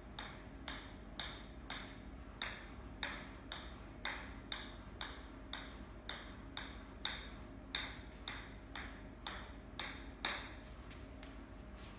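Golf ball being juggled on the face of a wedge: sharp clicks of ball on clubface at a steady rhythm of about two a second.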